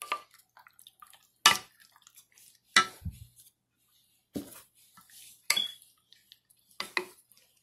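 A wooden spoon working jerk marinade into chicken thighs in a baking dish: about six sharp knocks of the spoon against the dish, roughly a second apart, with faint wet sounds of the sauce between them.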